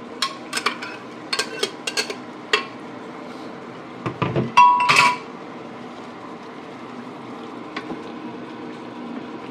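A metal spoon clinking and scraping against a cooking pan as onion-tomato paste is stirred into chicken, with a quick run of clinks in the first couple of seconds. About four seconds in comes a louder clatter with a brief metallic ring, then only a low steady hiss.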